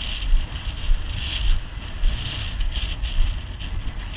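Wind buffeting the microphone: a low, gusting rumble, with a higher hiss that swells and fades in patches.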